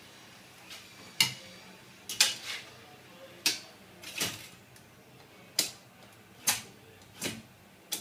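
Metal marking-out tools, a steel rule and a square, clicking and knocking against a perforated metal cable tray as it is set out for cutting: about eight sharp taps, unevenly spaced.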